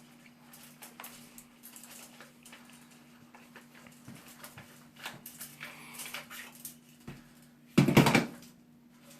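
Hand tools and toilet tank parts being handled: light clicks and rattles, then a loud clatter lasting about half a second near the end, over a faint steady hum.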